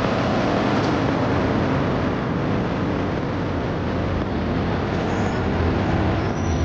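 Road traffic with a Güleryüz double-decker bus's engine running as the bus drives up and pulls in to the stop, the sound swelling slightly near the end.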